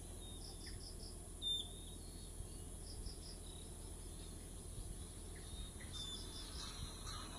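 Faint crickets chirping at night, short chirps of three or four quick pulses repeating every few seconds, over a steady high hiss and a low hum.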